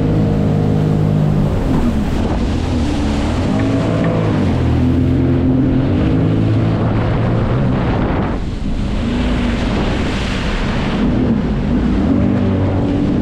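Jet ski engine running under way, its pitch shifting up and down with the throttle, over a hiss of water spray and wind on the microphone. About eight and a half seconds in the engine note dips briefly and the rushing spray comes to the fore for a couple of seconds.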